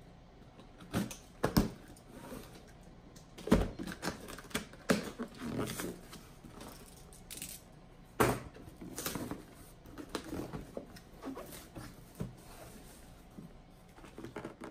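A cardboard shipping box being cut and opened by hand: a blade slitting packing tape and the flaps pulled back, giving irregular knocks, scrapes and cardboard rustles. The loudest knocks come about three and a half and eight seconds in.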